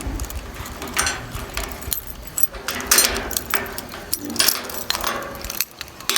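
A bunch of keys jangling, with irregular metallic clicks and rattles as a padlock is unlocked.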